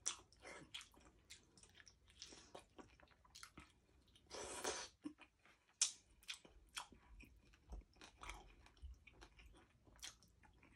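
Soft, close-up mouth sounds of eating: chewing, wet lip smacks and small crunches from a person eating saucy kare-kare and eggplant by hand. There is a longer, louder chewing noise about four seconds in.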